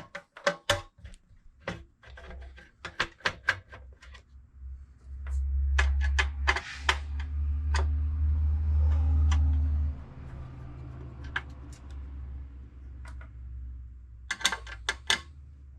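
Sharp clicks and light clatter of small computer hardware being handled and taken apart, as the drive is freed from a desktop PC. A loud low rumble runs for about five seconds in the middle, with further clicks over it.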